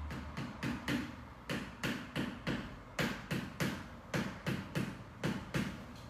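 A hand slapping a person's body in a steady run of sharp slaps, about three a second, with a short pause every few strokes.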